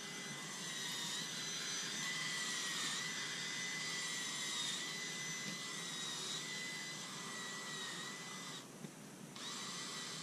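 Black & Decker power drill spinning a garden auger bit into soil to bore planting holes, its motor whining steadily. It stops briefly near the end and then starts again for the next hole.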